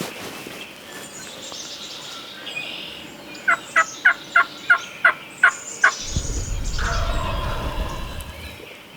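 Wild turkeys calling: a run of about eight short, sharp yelps, evenly spaced, then a longer, rougher gobble with a low rumble under it.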